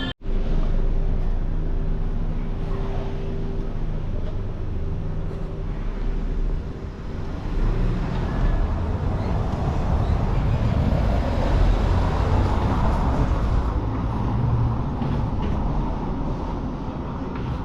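Steady low rumble of a running vehicle, with a brief dropout just after the start.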